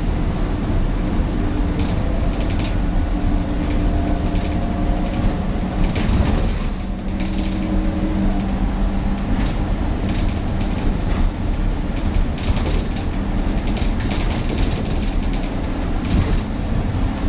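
Interior of an old bus while driving: a steady low engine and road rumble under constant creaking and irregular rattling of the bus body and fittings. The engine note dips and shifts about six seconds in.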